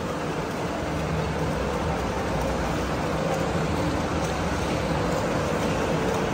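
Continuous splashing and churning water from two swimmers kicking and stroking front crawl. A steady low hum runs underneath.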